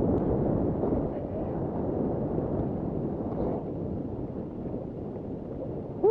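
Wind rushing over a ski-helmet camera's microphone with the skis hissing over packed snow during a downhill run, slowly getting quieter. Right at the end a person's loud whoop cuts in.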